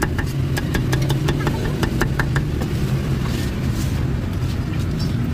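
Cleaver chopping roast pork belly on a thick wooden chopping block: sharp irregular knocks, two or three a second, fewer after about three seconds. Under them runs a steady low hum.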